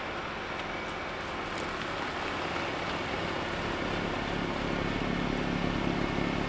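Kubota MX6000 diesel tractor running steadily with its WoodMaxx SB72 snowblower, growing a little louder over the last few seconds.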